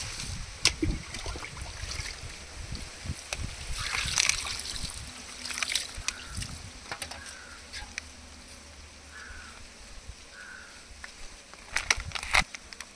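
Water poured from an aluminium pot splashing over a duck carcass on a stone slab as it is rinsed and rubbed by hand, with the heaviest splashing a few seconds in. A few sharp knocks near the end.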